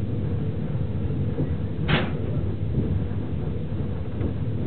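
Low, steady rumble of a train running slowly on rails, with one short sharp knock about two seconds in.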